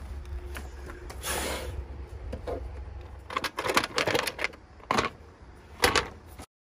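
Handling sounds: a brief rustle about a second in, then a quick run of hard plastic clicks and knocks from about halfway as the plastic air-filter cover on a Briggs & Stratton lawn tractor engine is unclipped and lifted off.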